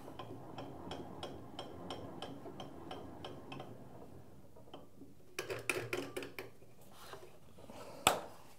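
Cabinet table saw's blade being raised by cranking the height handwheel, with the motor off: light regular ticking, about four ticks a second, then after a pause a short run of clicks and clatter, and one sharp click near the end.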